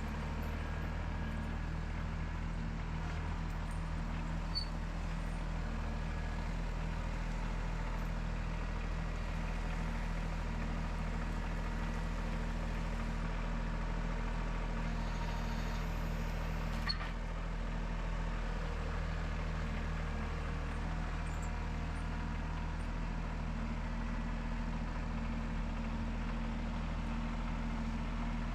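Engine of a full-hydraulic sawmill idling steadily, a constant low hum, with a sharp click about seventeen seconds in.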